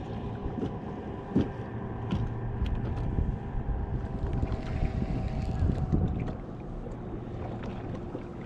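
Wind on the microphone and water lapping against a bass boat's hull, over a faint steady hum. A few light clicks and knocks come from handling a baitcasting reel and lure, the strongest about a second and a half in.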